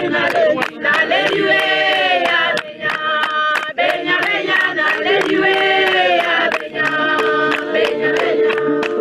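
A group of voices singing a chant-like song over fast, steady hand claps, in the manner of a traditional dance song.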